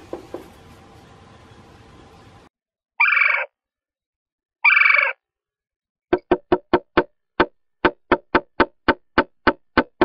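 Male red-bellied woodpecker giving two loud calls, then tapping sharply on the wood inside the nest box, about fifteen taps at roughly four a second. It is his mating-season display at the chosen nest site.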